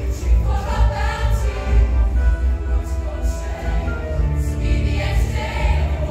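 High school show choir singing in parts over a live backing band, with a heavy bass underneath.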